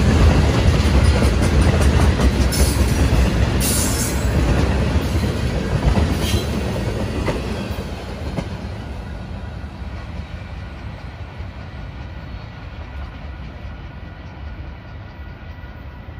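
Freight train tank cars rolling past, steel wheels rumbling on the rails with a few sharp clicks. About halfway through the sound starts fading away as the train recedes.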